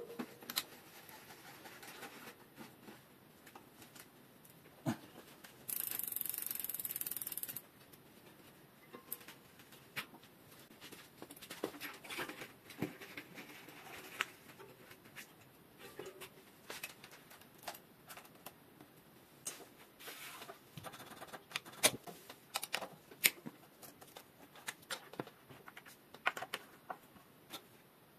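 Scattered small clicks, taps and metallic knocks of hand work on a bicycle: a wheel being seated in the frame and fork and a V-brake being set up with a tool. A steady hiss lasts about two seconds, starting about six seconds in.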